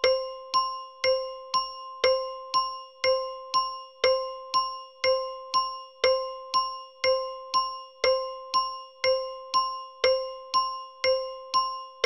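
Bell tick-tock timer ticking: a bell-like tone struck evenly about twice a second, each strike the same pitch and ringing briefly before it fades into the next.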